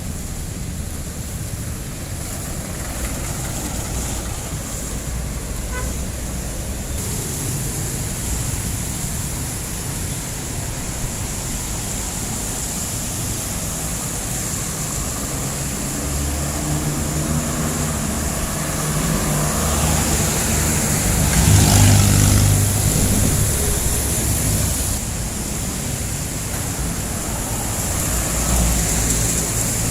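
Street traffic with jeepneys' diesel engines running. Engine noise builds about halfway through and is loudest about two-thirds of the way in as one passes close, then another approaches near the end.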